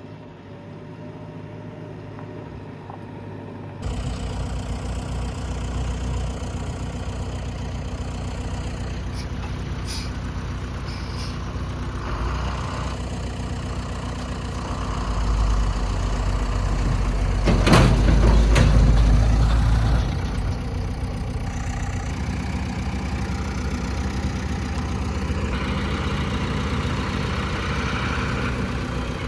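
Heavy machine's diesel engine running steadily near idle. It steps up suddenly about four seconds in and swells louder for a few seconds past the middle, with a sharp burst of noise at the loudest point.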